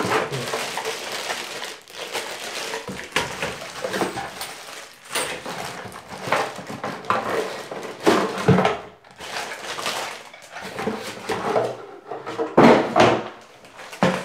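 Cardboard box and plastic-bagged parts of a dual-flush toilet kit being unpacked by hand: irregular rustling and crinkling, with a few sharper handling knocks.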